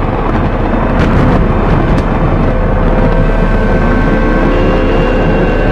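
Loud, steady rumbling of a volcanic eruption sound effect. From about the middle, a whine begins rising in pitch, and steady higher tones join it near the end.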